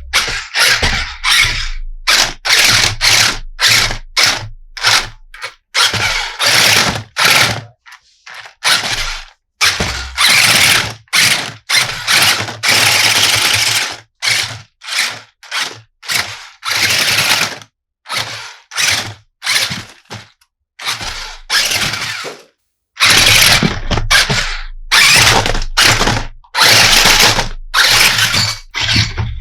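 Plastic toy and packaging handled close to the microphone: a quick, irregular string of loud rustles, clicks and clatters.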